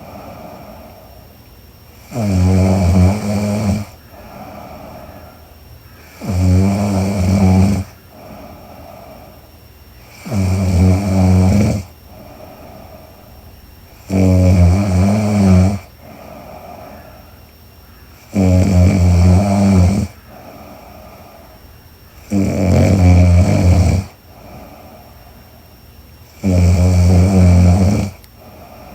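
A sleeping woman snoring: seven loud, buzzing snores come about every four seconds, each lasting about a second and a half, with much quieter breathing between them.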